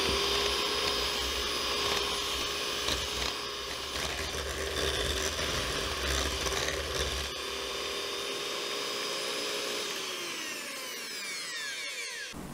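Electric hand mixer running steadily with a motor whine as its beaters whip egg into creamed butter and sugar in a glass bowl. Near the end the whine falls in pitch and the mixer winds down to a stop.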